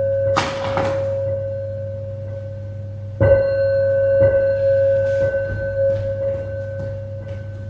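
Performance music of a single sustained, bell-like ringing tone, struck again about three seconds in and slowly fading. There is a brief rustling noise about half a second in, and a few faint taps.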